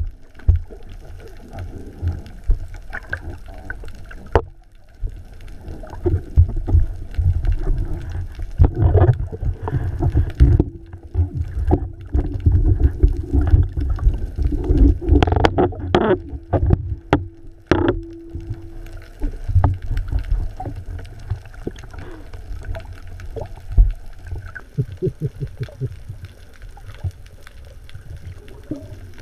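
Muffled underwater sound heard through a submerged camera: water sloshing and gurgling with a low rumble and scattered knocks against the camera. A steady hum comes in for several seconds in the middle.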